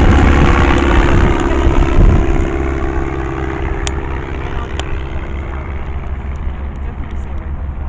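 A propeller-driven aircraft flying past, loud at first, then fading away from about two and a half seconds in.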